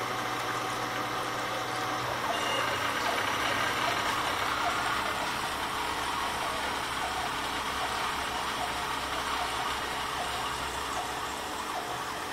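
CNC milling machine's end mill cutting a metal plate under a coolant spray, with the spindle running: a steady, dense cutting noise that grows a little louder about two seconds in.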